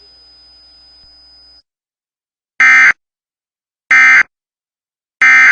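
Emergency Alert System end-of-message data tones: three short, loud, identical bursts of the digital SAME signal about 1.3 seconds apart, marking the end of the test alert. A faint steady hum is heard before them and cuts off about a second and a half in.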